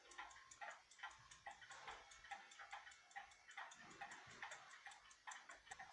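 Faint, steady ticking of a weight-driven pendulum clock's deadbeat escapement, from the 1912 Waterbury hall clock.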